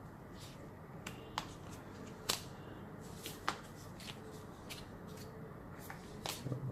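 A small cardboard product box being opened and handled by hand: scattered light clicks, taps and rustles of card and packaging, with a few sharper snaps.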